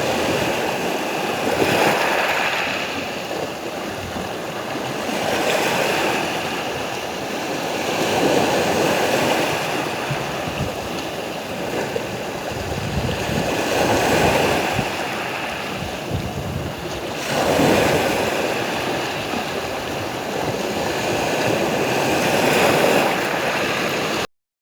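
Sea waves washing in and breaking, swelling and falling back every few seconds. The sound cuts off suddenly near the end.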